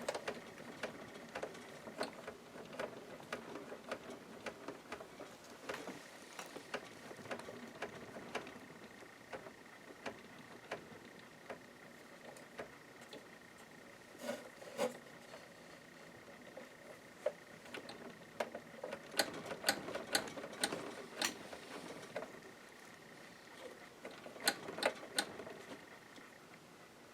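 Janome ME4014 sewing machine running with its casing partly off, giving a steady high whine with irregular clicks and knocks from its mechanism. The clicks come in quick clusters twice in the second half, and the whine stops near the end.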